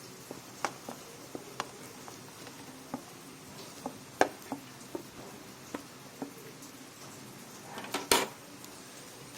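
Sliced onions frying in hot oil in a pan, a faint sizzle, with a spoon stirring and clicking against the pan now and then and a louder clatter about eight seconds in.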